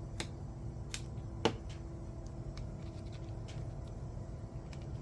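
A few sharp small clicks and taps from handling an object, the loudest about one and a half seconds in, over a steady low hum.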